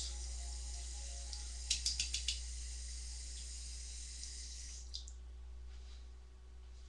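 Bathroom sink tap running, with a quick run of five sharp taps about two seconds in. The water is turned off about five seconds in.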